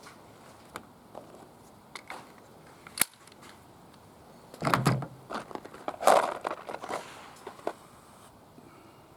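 Scattered clicks and knocks with some rustling, from ammunition and pistol magazines being handled at a shooting bench; the sharpest click comes about three seconds in, with busier handling around five and six seconds.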